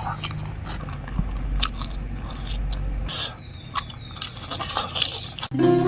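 Close-up mouth sounds of eating: chewing, biting and crunching into cooked meat, with scattered wet clicks and smacks. Plucked guitar music starts near the end.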